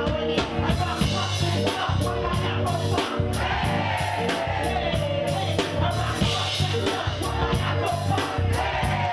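Hip-hop beat with heavy bass and a steady drum pattern played loud through a club PA, with a female rapper's voice on the microphone over it.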